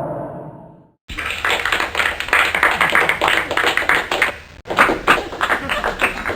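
A sound-effect clip of rapid sharp taps, many a second. It starts about a second in, after a previous effect fades out, and pauses briefly about two-thirds of the way through.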